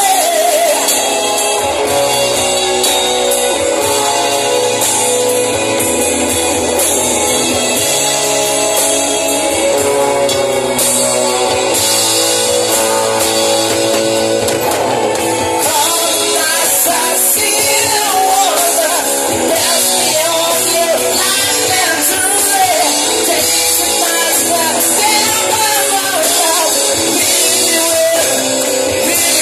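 Live band playing a song: singing over drum kit, bass guitar and keyboard, continuous and loud.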